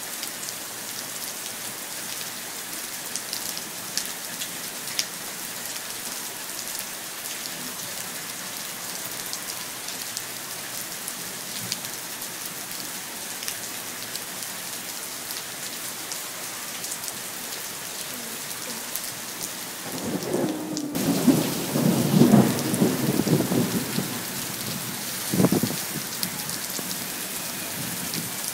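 Steady rain with scattered drop hits. About twenty seconds in, a rumble of thunder lasts several seconds, with a sharper burst near its end.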